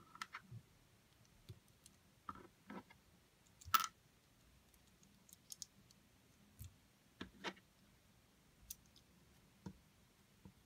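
Small Lego plastic pieces clicking and snapping together as a minifigure is put together by hand: scattered sharp clicks, the loudest about four seconds in.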